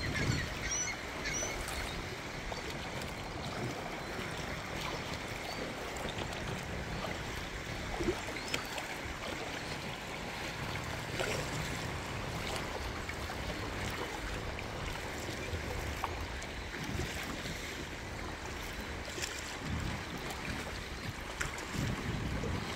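Water sloshing and lapping against a paddled kayak's hull, with scattered small splashes and wind buffeting the microphone now and then.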